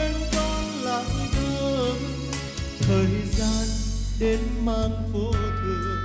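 A man singing a melody into a microphone over a recorded backing track with a steady bass line and beat.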